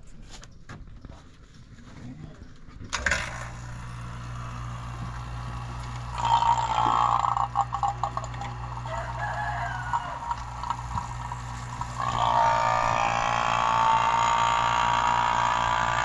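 Electric refrigeration vacuum pump switched on about three seconds in and running with a steady motor hum, growing louder with a hissing, gurgling rush at about six seconds and again at about twelve seconds as it draws the air out of the air-conditioner lines.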